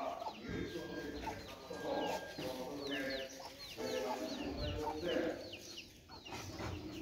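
Chickens clucking, with many short, high peeps that fall in pitch, repeated through most of the stretch.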